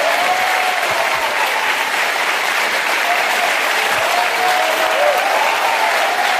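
Large studio audience applauding steadily.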